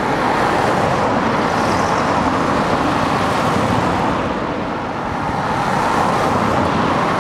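Steady road traffic noise, a continuous rushing hiss that eases a little about five seconds in and then swells again.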